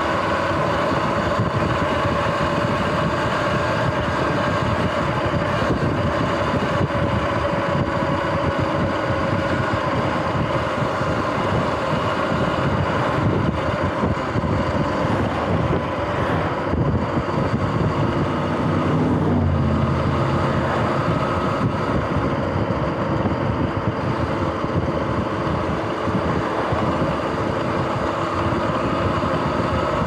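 Sur-Ron X electric dirt bike under way on pavement, its motor and chain drivetrain giving a steady whine over a low rumble. The owner puts a grinding, clicking noise from this bike down to failing front hub and jackshaft bearings.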